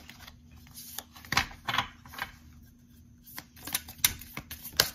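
A deck of oracle cards being shuffled by hand: an irregular run of crisp clicks and flaps as the cards slide and strike one another, with a quieter stretch in the middle.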